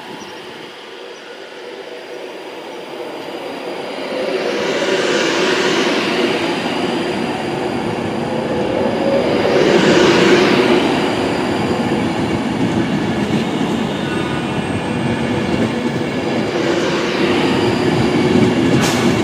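Class 390 Pendolino electric tilting train pulling out of the platform. The loudness builds over the first few seconds, and a steady whine of the traction motors runs over the rumble of wheels on rail, swelling and easing several times as it passes.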